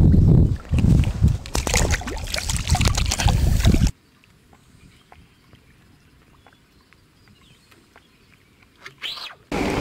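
Water sloshing and splashing, heavy with wind rumble, that cuts off suddenly about four seconds in. After that only faint small clicks remain until a brief loud burst, and the splashing and rumble return just before the end.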